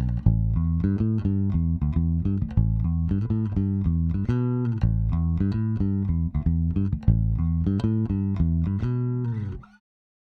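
Fender Jazz Bass played through an EBS MultiComp compressor: a bass line of quick plucked notes, several a second, that stops abruptly near the end.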